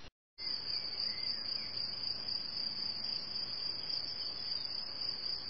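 Crickets chirping in a steady, high-pitched, unbroken chorus, starting just after a moment of silence.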